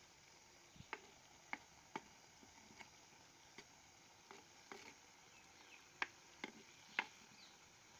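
A ladle stirring grated raw papaya in a clay pot, knocking and scraping against the pot in about a dozen short, irregular clicks and knocks.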